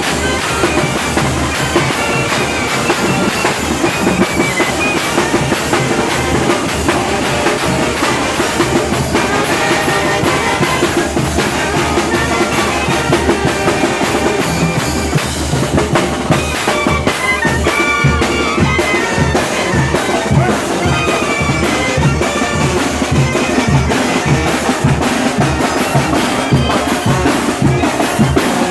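A Mixtec village band playing dance music: a wind melody over drums keeping a steady beat.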